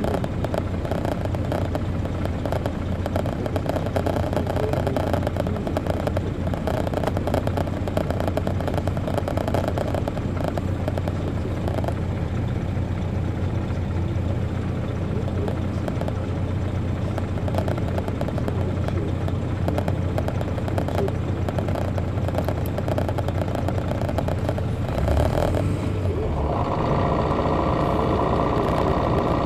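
Detroit Diesel Series 60 diesel engine of a 2002 MCI D4000 coach, heard from inside at the rear of the bus while under way: a steady low drone with rattling and clatter from the cabin. Near the end the engine drops back and settles to a steady idle.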